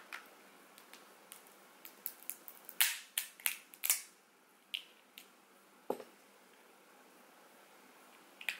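Crab leg shells cracking under a metal seafood cracker: a run of sharp snaps, thickest around three to four seconds in, then a few single cracks.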